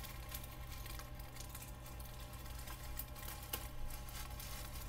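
Faint rustling and light ticks of a paper label strip and its film being pulled by hand through a Xyron sticker maker, with one slightly sharper click about three and a half seconds in, over a steady low hum.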